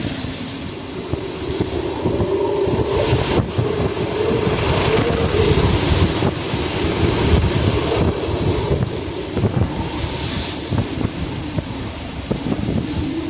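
Hurricane eyewall winds howling and gusting, with heavy wind buffeting on the microphone. The wind swells to its strongest in the middle and eases slightly near the end.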